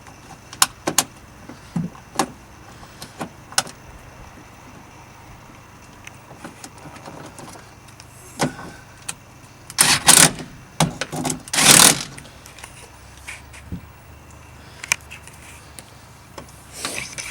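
Small metallic clicks, knocks and rattles from door lock and handle parts being handled and fitted in a car door, with two louder scraping rattles a little past the middle.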